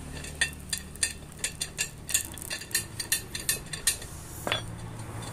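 Irregular metallic clicks and clinks of a small wrench working the valve-stem nut loose on a scooter's rear rim, about three or four a second, with a longer scrape about four and a half seconds in.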